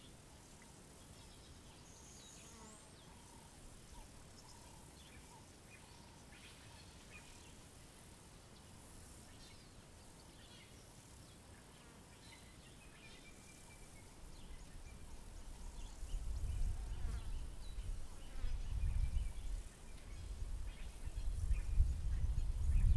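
African savanna ambience: faint scattered bird calls over a soft insect buzz. A bit past halfway, a low rumble starts, comes and goes in surges, and grows louder toward the end, drowning out the rest.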